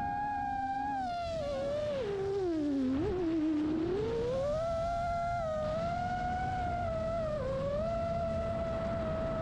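5-inch FPV quadcopter's motors whining as it flies. The pitch falls steeply from about two seconds in to a low point near three seconds as the throttle is eased off, then climbs back and holds steady, over a low rumble of wind.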